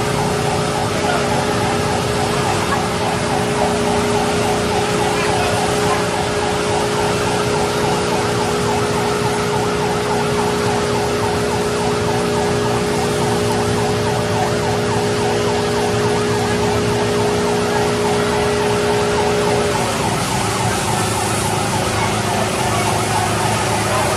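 Fire engine siren sounding as a steady tone over the continuous rushing noise of fire trucks running and spraying water. The steady tone cuts off about 20 seconds in, while the rushing noise goes on.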